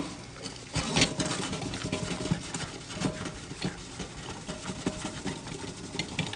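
Irregular light knocks and clatter of a stainless steel coffee pot being handled and washed.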